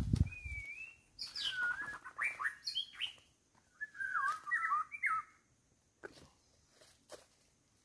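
Wild bird song: a string of whistled, warbling phrases over the first five seconds or so, then only faint ticks. A brief low thump comes at the very start.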